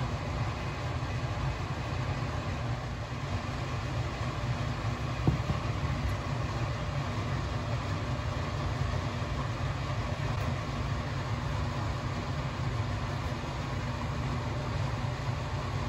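Steady low drone of shop machinery running, with a single light knock about five seconds in.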